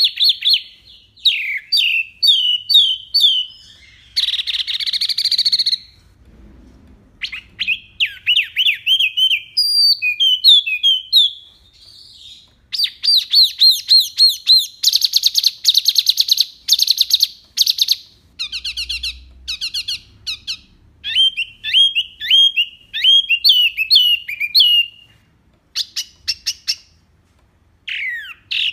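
A wambi mini songbird singing its 'tembakan' song: fast bursts of sharp, down-slurred whistled notes and rapid trills, phrase after phrase with short pauses between.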